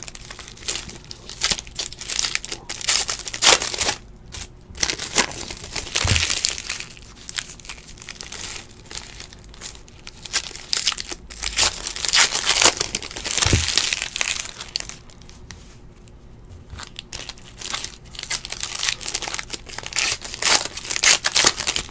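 Foil card-pack wrappers crinkling in irregular bursts as trading card packs are opened and handled by hand, with two dull knocks in between.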